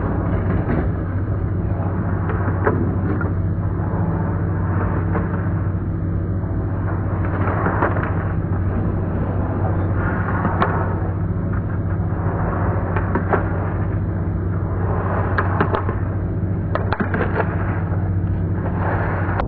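Slalom skis scraping and carving on hard snow, slowed down, with a rasping swell on each turn roughly every two and a half seconds over a steady low hum. A few sharp clacks come near the end.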